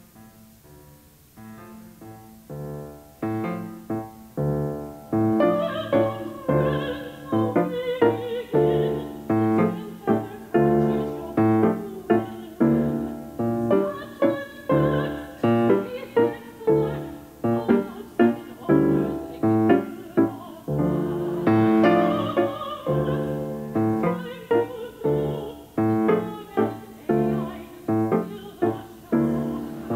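Grand piano playing repeated chords that start softly and build over the first few seconds, with a soprano singing over them in operatic style.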